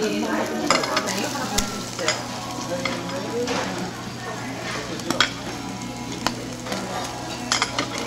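Pork sizzling as it grills, with scattered sharp clicks over a steady low hum.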